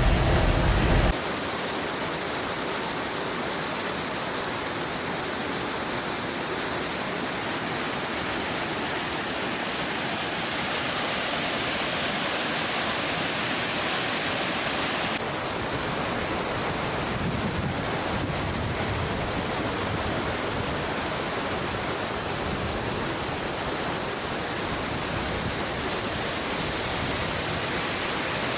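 Steady rush of Talofofo Falls, an even noise with no pitch. A louder, lower sound cuts off about a second in, and the tone of the rush shifts slightly about halfway through.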